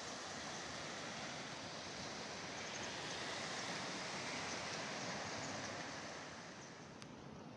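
Small sea waves washing and breaking on a rocky shore: a steady rush of surf that eases a little near the end, with a brief click about seven seconds in.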